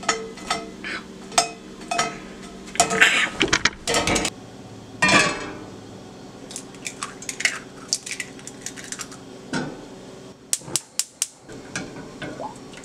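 Cookware clatter: toast handled in a cast-iron skillet, then eggs cracked into a metal saucepan and a spatula knocking and scraping in it. A string of sharp clinks and taps, with a quick run of crisp clicks near the end, over a steady low hum.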